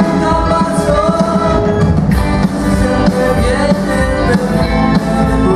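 Live band playing a rock and roll song on electric guitars, upright double bass and drums, with singing.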